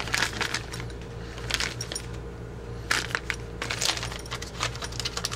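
Small metal gun parts clinking and shifting inside thin zip-lock plastic bags as the bags are handled, with plastic crinkling; the clicks and rustles come in irregular clusters.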